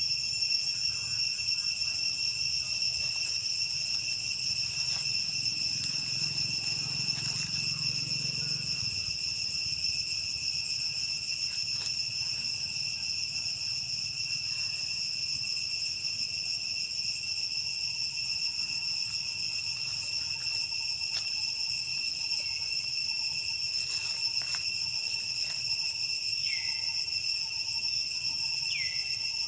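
Steady, high-pitched insect chorus droning without a break, with a few short falling chirps near the end.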